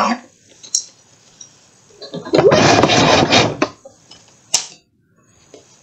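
Trading cards being handled: a dense rustling, scraping noise lasting about a second and a half, starting about two seconds in, then a single sharp click a little later.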